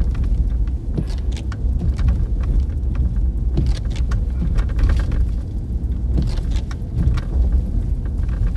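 Car driving over a shaky, bumpy road, heard from inside the cabin: a steady low road and engine rumble with scattered knocks and rattles from the bumps.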